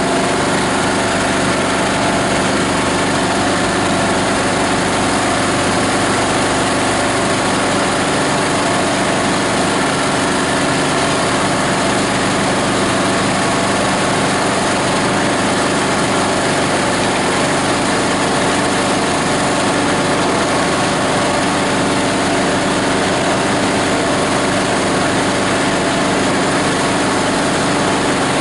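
Multi-blade plastic grinder driven by its 18 HP diesel engine, running steadily at a constant speed.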